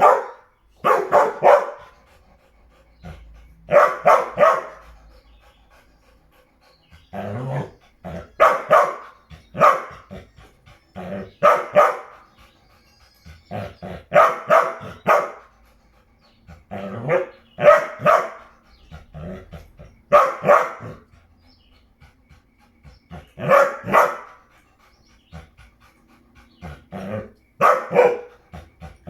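A dog barking in repeated bouts of two to four quick barks, a bout every two to three seconds.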